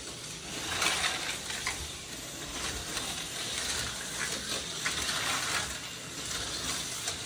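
Tyco HO-scale slot cars running on a plastic track: a steady hissing whir with scattered light clicks and rattles.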